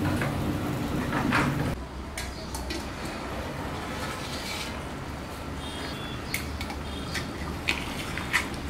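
Background music that stops abruptly about two seconds in, then a steel lid lifted off a brass cooking pot with pot tongs and a ladle put into the curry. There are a few sharp metal clinks near the end, over a low steady background.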